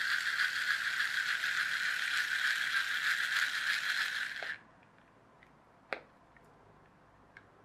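Small electric motor and plastic gearbox of a 1994 TOMY wire-controlled toy plane running steadily, with the gearbox cam working the up-and-down and forwards-and-backwards motions. It cuts off suddenly about four and a half seconds in, followed by a few faint clicks.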